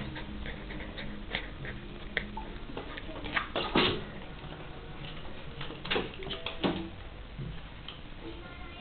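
A pet animal sneezing in short, sharp bursts, the loudest about four seconds in.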